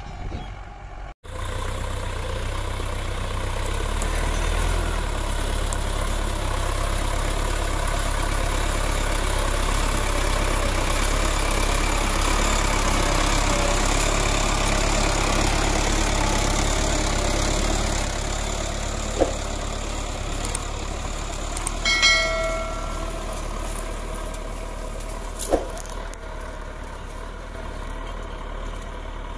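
Sonalika RX 55 tractor's diesel engine running steadily under load as it pulls a mouldboard plough through the soil. A short high-pitched tone sounds about two-thirds of the way through, between two sharp clicks.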